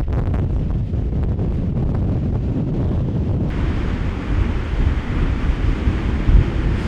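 Strong wind buffeting the microphone, mixed with ocean surf. A brighter, steady hiss cuts in suddenly about halfway through.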